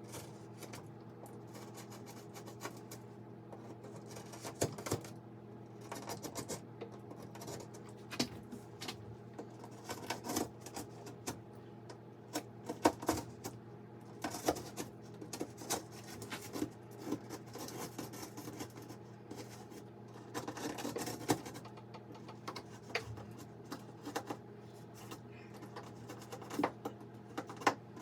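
Irregular light clicks and taps, like small objects being handled, scattered over a steady low hum.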